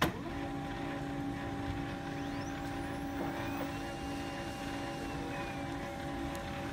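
Samsung SCX-4321 laser printer starting up with a click, then its motor and gear train running with a steady hum as it warms up.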